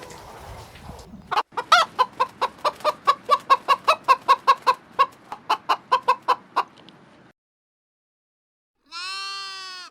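Chicken clucking in a fast run of short, sharp clucks, about four a second, for some six seconds, then stopping abruptly. Near the end a single drawn-out animal call with a steady pitch begins.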